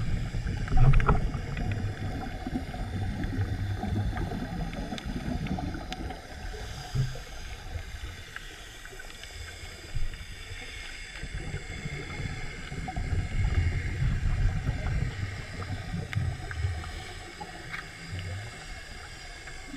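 Underwater sound picked up by a camera in its waterproof housing while a diver swims: an uneven low rumble of moving water that swells and fades, with a faint steady high whine and a few sharp clicks or knocks, the loudest about a second in.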